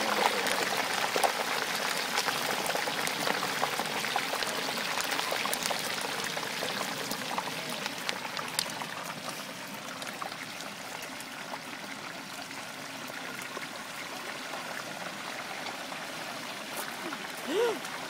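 Whole turkey lowered into 350-degree oil in a deep-fryer pot, the oil bubbling and sizzling with dense crackling, loudest at first and slowly dying down.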